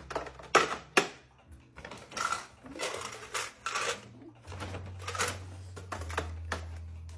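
Snack packages being handled and packed into an acrylic trunk: a quick run of sharp clicks and taps, then plastic wrappers crinkling and light clatter. A low steady hum comes in about halfway.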